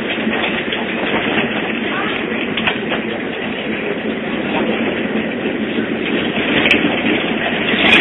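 Tram running along the street, heard from inside the car: a steady rumble of steel wheels on the rails and the running gear.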